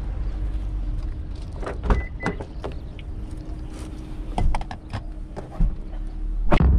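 A string of small clicks and knocks, then the driver's door of a Suzuki Alto Lapin shutting with a solid thump near the end.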